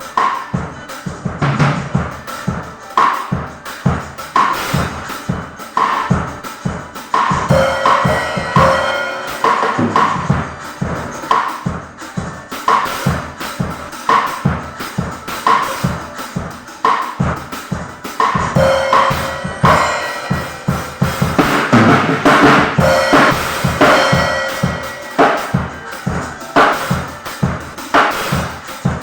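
Drum kit played in a steady rhythm, with kick drum and snare hits throughout, and short pitched notes and a few held tones from other instruments now and then.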